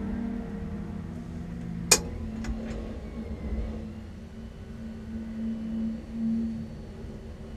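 A single sharp click about two seconds in, from a dashboard switch flicked inside a stripped-out MG Midget race car, over a steady low hum that swells a little near the end.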